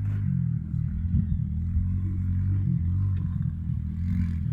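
An engine running, its pitch rising and falling a little, with a few light knocks over it.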